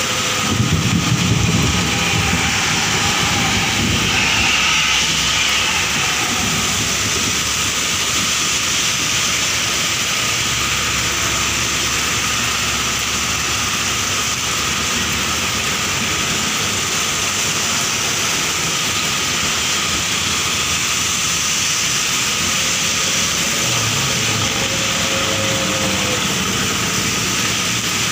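Heavy rain pouring steadily onto a flooded road, with vehicles driving past through the standing water; a passing engine rumbles near the start and again near the end.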